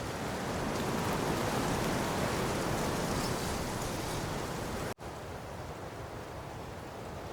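Steady rushing noise of water in monsoon rain. About five seconds in it cuts out for an instant and comes back a little quieter.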